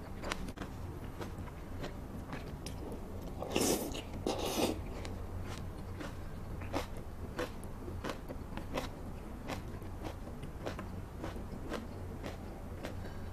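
Close-miked wet chewing of saucy braised meat strips, with a steady run of small mouth clicks and smacks and two louder noisy bursts about four seconds in, over a low steady hum.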